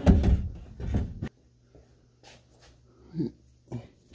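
Car sunroof assembly, a metal frame holding the glass panel, being lifted out of the roof opening: clunks, knocks and scraping for the first second or so, then quieter handling sounds and a short grunt of effort about three seconds in.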